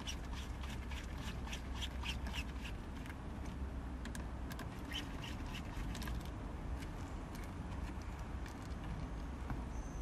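Quick, irregular little clicks and squeaks of hand work at the base of a gear lever: a screwdriver and plastic trim being worked around the shifter, over a steady low rumble. The clicks come thickest in the first three seconds and again around five seconds in, then thin out.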